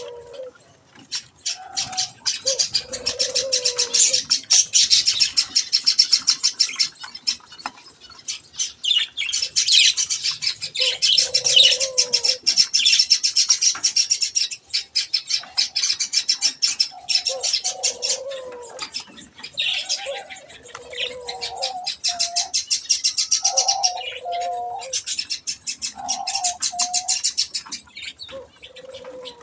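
A group of budgerigars chattering: a dense, continuous stream of rapid high chirps and twitters, with lower warbling calls breaking in every few seconds.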